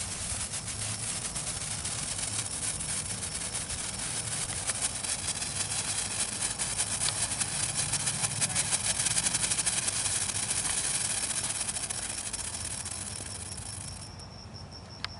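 Ground firework spraying sparks: a steady hiss packed with rapid crackling, growing louder, then dying away and stopping about a second before the end.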